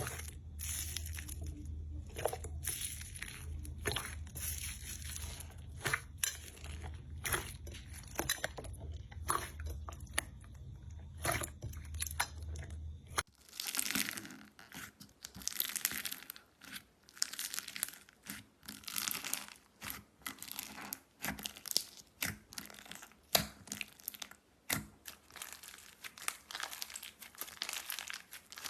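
Slime being squeezed and pressed by hand, giving a run of sharp crackles, clicks and pops. A steady low hum sits under the first part and stops suddenly about 13 seconds in, after which the crackling gets denser.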